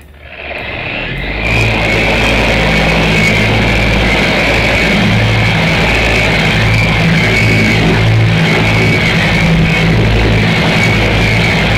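Electric variable-speed polisher buffing a fiberglass gel-coat surface: a steady high whine over a lower motor hum that swells and dips as the pad is worked across the surface. It comes up to speed over the first second or two.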